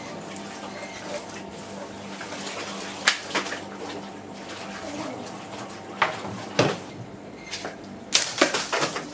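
A steel shamshir sword in a cutting test, slashing water-filled plastic bottles and bamboo stalks. There are sharp strikes in pairs about three and six seconds in, then a quick run of cuts near the end.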